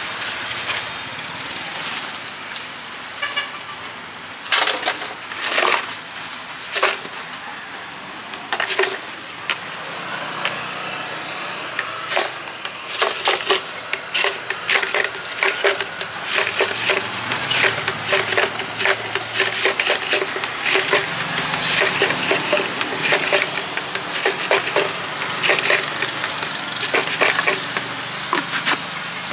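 Clicks and knocks of plastic containers, lids and utensils being handled at a food-stall counter, a few at first and then coming thick and fast in the second half, over a steady background hum.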